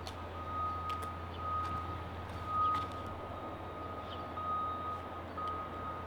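An electronic beeper sounding a single steady tone about once a second, over a low steady hum, with a few faint clicks.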